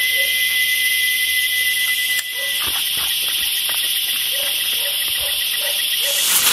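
Crickets and other night insects chirping steadily, with a high trill that turns to pulsing about two seconds in and short repeated lower chirps. Near the end a rushing hiss starts as a small toy-plane firework ignites.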